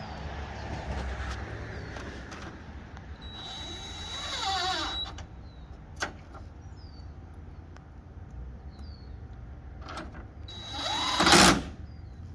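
Power drill run in two short bursts, its motor whining and its pitch sliding as it spins up and winds down; the second burst is the louder. There is a sharp click between the bursts and faint bird chirps.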